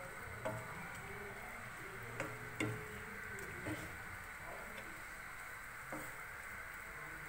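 Sliced onions sizzling in hot oil in a nonstick wok while a wooden spatula stirs them, knocking against the pan about five times.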